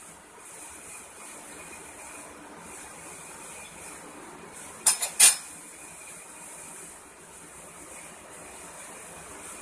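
A perforated steel skimmer clinks twice in quick succession against the karahi about five seconds in, over a faint steady hiss of hot frying oil.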